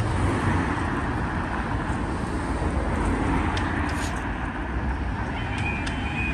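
Cars driving over a level crossing: steady engine and tyre noise. Near the end the crossing's electronic warning alarm starts, a high wavering tone, the sign that a train is due and the barriers are about to come down.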